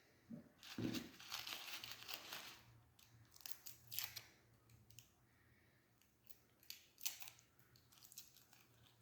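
Dry garlic skins crinkling and tearing as cloves are peeled and split by hand, in a few short, faint bursts.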